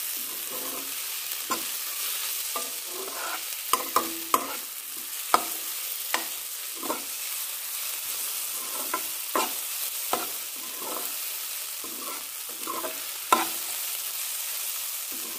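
Sliced onions and spice masala sizzling in oil in a stainless steel kadai, a steady hiss, while a metal spatula stirs them, scraping and clinking against the pan at irregular intervals. The onions are being fried until golden brown.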